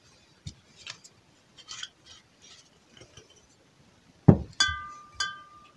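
Faint handling clicks, then a knock and two short ringing clinks of glass as ingredient bottles are handled on a tabletop.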